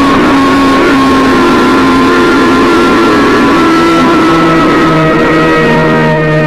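Loud, distorted emergency-alert alarm tone of the EAS type: several steady pitches held together over a harsh noisy buzz, with a new, lower tone joining about four seconds in.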